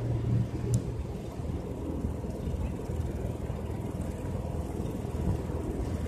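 Low, steady rumble of city traffic.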